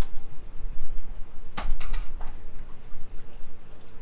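A few sharp plastic clicks and snaps from hands working open a zip-tied plastic bucket lid, bunched together about a second and a half in with another at the end, over a steady low rumble of wind on the microphone.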